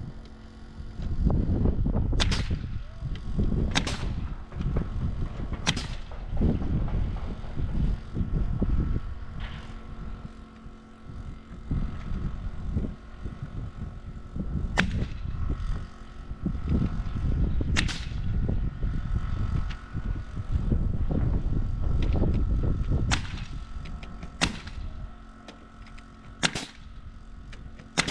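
Pneumatic nailer firing nails through OSB subfloor panels into timber floor joists: about eight sharp shots, spaced irregularly a second or several apart, over a low, uneven rumble and a faint steady hum.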